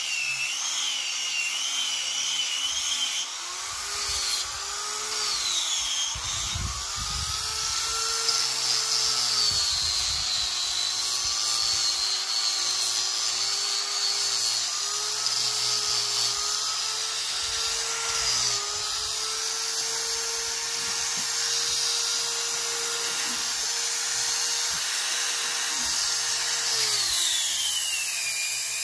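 Small electric angle grinder with a sanding disc running against jujube wood, sanding the slab's surface. Its motor whine wavers and dips in pitch as the disc is pressed into the wood, with a falling glide near the end.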